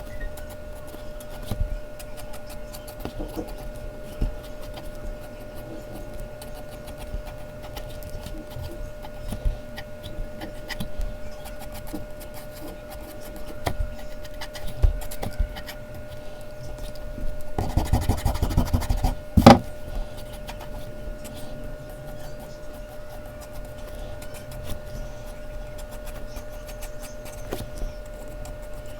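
Mechanical pencil scratching and ticking on Bristol paper in short strokes, with a louder stretch of rubbing on the paper a little past halfway that ends in a sharp tap. A faint steady hum runs underneath.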